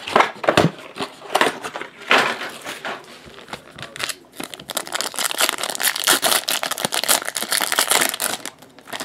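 Foil trading-card pack wrapper crinkling as it is handled and torn open. The crackling is heaviest and most continuous from about five seconds in until near the end.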